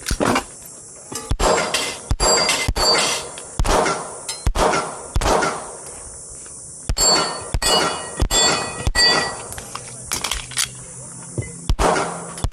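Handgun shots fired in a string at steel targets, roughly one every half second to a second with a short pause in the middle, each hit followed by the clang and ring of a struck steel plate.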